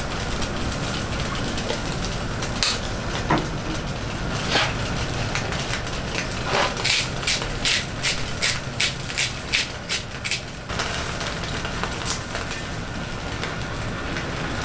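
Propane disc cooker's burner running, with fish cooking in lemon and lime juice on foil. In the middle a seasoning shaker is shaken over the fish: about a dozen quick shakes, roughly three a second.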